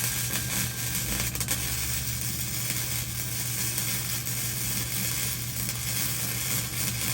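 Electric arc welding a bead on a steel smoker: the arc gives a steady crackling sizzle, with a low steady hum underneath.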